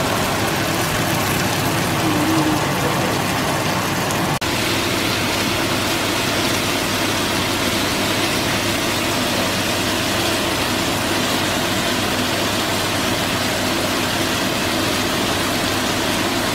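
Chunks of chicken breast frying in olive oil in a hot non-stick pan on a gas hob, sizzling steadily.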